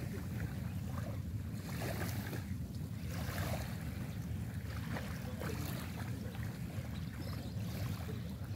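Wind buffeting the microphone with small waves lapping in shallow sea water, and brief splashes every second or so.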